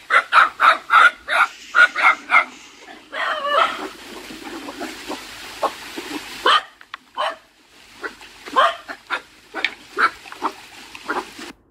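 Dogs barking at people coming through their yard: a quick run of barks, about four a second, over the first two and a half seconds. Scattered barks follow in the second half.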